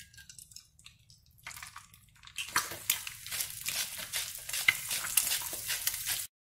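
An egg frying in a hot nonstick pan: faint sizzling starts about a second and a half in, then turns into loud, dense crackling that stops abruptly near the end.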